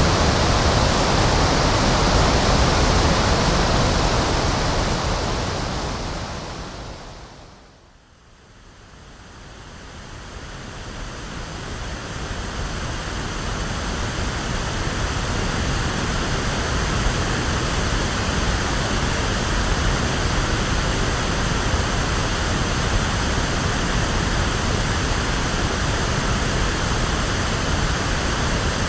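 Steady, electronically generated pink noise, a full even hiss with plenty of low rumble. About six seconds in it fades down to a brief low point, then swells back up over the next few seconds to the same steady level.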